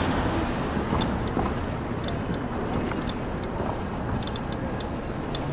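City street traffic heard from a moving bicycle: a steady low rumble of car engines and road noise, with scattered light clicks.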